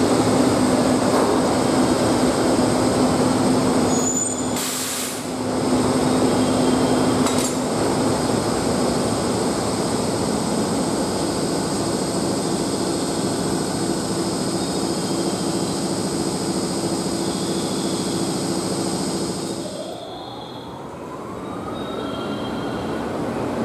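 Steady hum and whine of an EF65 electric locomotive and 12 series coaches standing coupled at a platform, with a short hiss about four and a half seconds in. Near the end the noise drops and a whine rises steadily in pitch.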